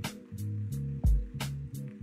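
Background music with a steady beat: a kick drum and snappy percussion over a bass line.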